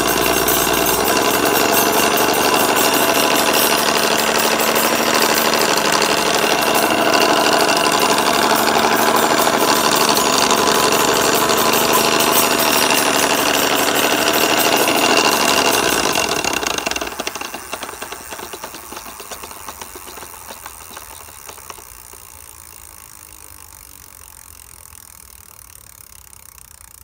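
Bafang rear hub motor of a RadRunner 1 e-bike spinning under throttle with a loud rattling, grinding noise, which the owner takes for a fault inside the motor or its gears. About 17 seconds in the throttle is let go and the noise dies away into fading clicks as the wheel coasts.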